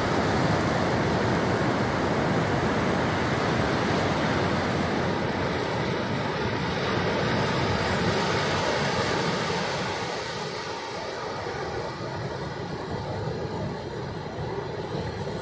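Ocean surf breaking and washing up a flat sandy beach: a steady rushing that eases off about two-thirds of the way through.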